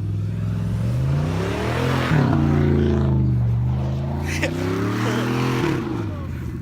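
A car engine revving. Its pitch climbs, drops back about two seconds in, climbs again and falls away near the end, over a steady rushing noise.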